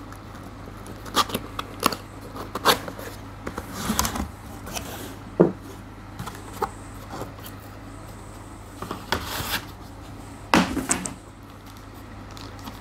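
Cardboard laptop box being opened and its packing handled: scattered knocks, scrapes and rustles of cardboard and plastic wrap, two of them louder about five and ten seconds in, over a steady low hum.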